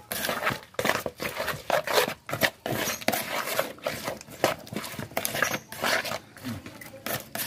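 Small wet fish being stirred and rubbed against each other and a plastic basin with a stick: quick, irregular scraping and squelching strokes, a few each second.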